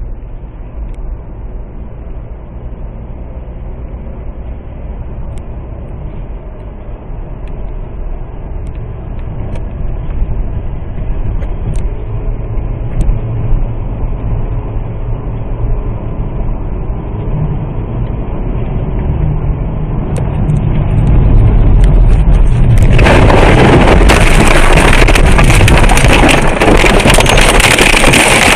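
Road noise inside a car heard through a dashcam: a steady low rumble of engine and tyres on a wet highway, slowly growing louder. About 23 seconds in a very loud, harsh crashing and scraping noise of the car crashing breaks in and runs for about five seconds, then cuts off.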